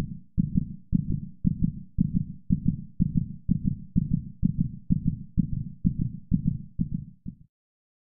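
A low, heartbeat-like thudding pulse from the soundtrack, about two beats a second, each beat doubled like a lub-dub, quickening slightly toward the end and cutting off about seven and a half seconds in.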